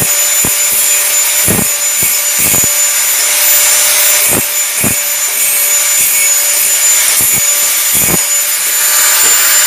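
Bosch angle grinder with an abrasive cut-off disc cutting steel: a steady high whine over a harsh grinding hiss, broken by a dozen or so short knocks.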